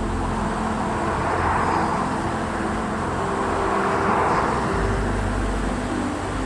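Background music of sustained low notes that change every second or so, over a rushing noise that swells and fades twice.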